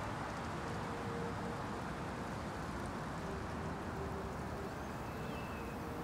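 Steady forest ambience: an even rushing like wind through trees, with a few faint soft held notes underneath and a faint short whistle near the end.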